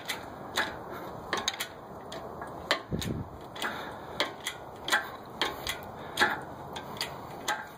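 Engine hoist being pumped by hand to raise an engine: a sharp click with each pump stroke, about three every two seconds, and a dull thump about three seconds in.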